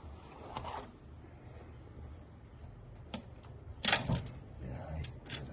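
A few sharp metallic clicks and clinks from hand tools being handled at the work, the loudest a short rattle about four seconds in.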